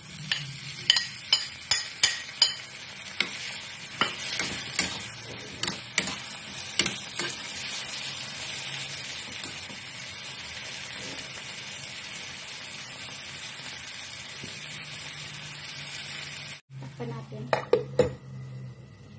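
Diced tomatoes sizzling in hot olive oil in a frying pan, with a utensil scraping and knocking against the pan during the first several seconds. Near the end, a few clanks as a stainless-steel lid is set on the pan.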